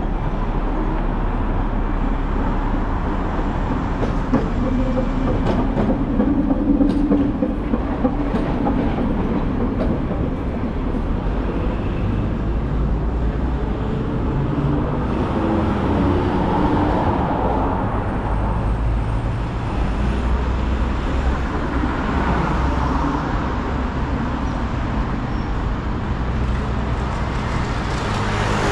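Steady city street traffic noise: a low rumble from vehicles on a wide road, with a faint high whine rising and falling around the middle.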